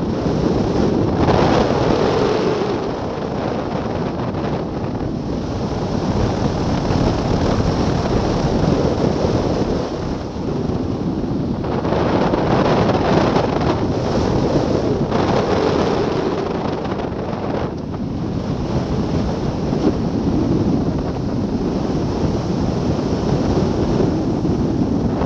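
Rushing wind noise from airflow over the microphone of a camera mounted on a hang glider in flight, steady and loud, swelling and easing every few seconds.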